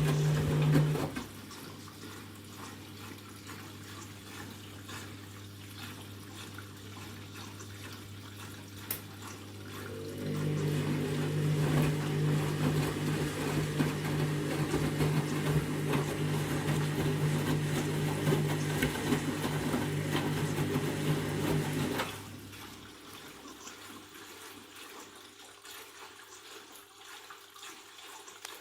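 Candy washing machine filling with water, water rushing into the drum. A low mechanical hum stops about a second in, comes back about ten seconds in and cuts out about 22 seconds in, leaving only the quieter sound of the water.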